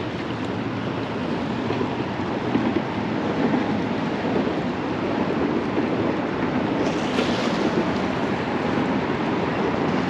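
Steady wind rushing over the microphone, over the wash of water below a pier.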